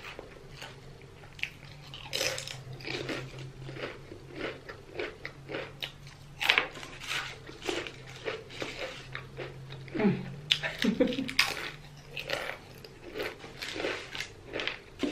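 Close-miked eating: irregular crunchy bites and chewing of food, over a steady low hum.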